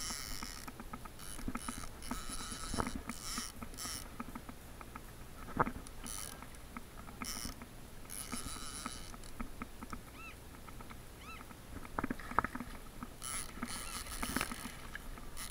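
Hooked tarpon thrashing at the surface beside a kayak, throwing water in several short bursts of splashing. A few sharp knocks come through, the loudest about five and a half and twelve seconds in.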